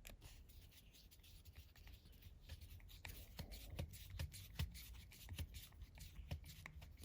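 Faint, irregular clicks and scratching of a small screwdriver turning the tiny screw that holds the key blade in a plastic key fob case.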